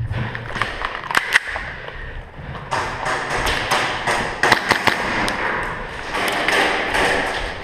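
Running footsteps on a hard tiled floor with clothing and gear rustling close to the microphone, broken by several sharp clicks and knocks, two of them close together about a second in.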